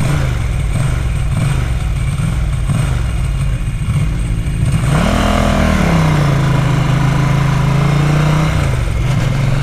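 Ducati 900 SS's V-twin engine under way, its pitch wavering at low speed for the first few seconds, then rising about five seconds in and holding steady, with wind noise over the microphone. The bike has a carburettor fault that the owner calls a chronic hiccup.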